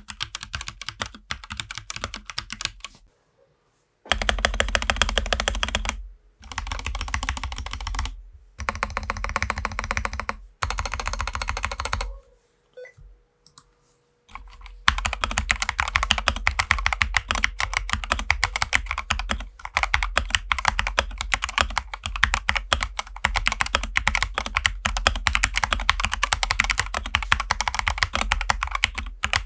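Fast typing on an Akko 3068S mechanical keyboard fitted with a four-layer Tempest tape mod: a dense run of key clacks. It breaks off in short pauses about 3, 6 and 8 seconds in, and in a longer near-silent gap from about 12 to 15 seconds, then continues without a break.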